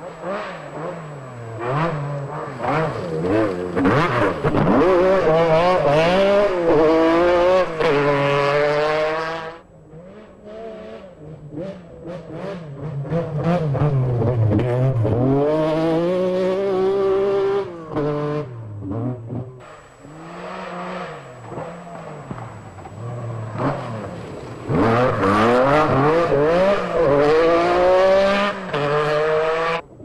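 MG Metro 6R4's naturally aspirated 3-litre V6 rally engine revving hard, its pitch climbing and dropping back again and again as it changes gear. It comes in three loud runs with quieter stretches between.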